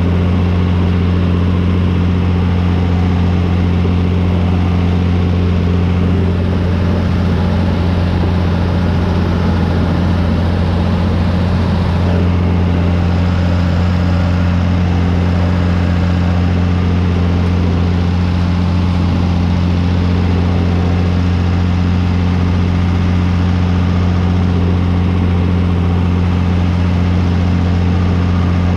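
John Deere 3350 tractor's diesel engine running at a steady speed, heard close to its exhaust stack: an unbroken low drone with no change in revs.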